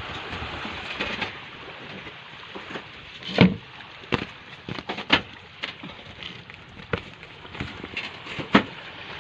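Scattered sharp knocks and clicks from hands and tools working on a small boat's engine, the loudest two about three and a half seconds in and near the end. A steady hiss of wind and water runs underneath, and the engine is not running.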